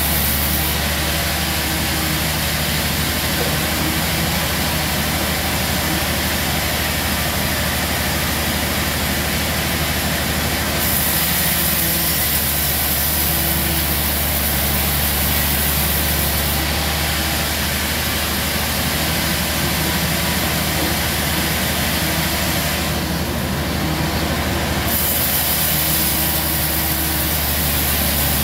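Large sawmill band saw running steadily over a deep motor hum while it saws a log on the carriage; the higher sound of the cut grows stronger and fades a few times.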